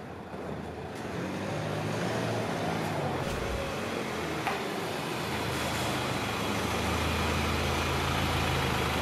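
Lifted Nissan NP300 Navara ute's engine running as it drives up, growing louder, then settling into a steady idle for the last couple of seconds. A single short click sounds about halfway through.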